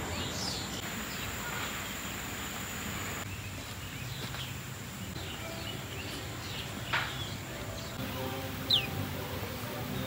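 Mixed birdsong in an aviary: scattered short chirps over a steady background, with a sharp falling whistle about seven seconds in and another, higher one near the ninth second.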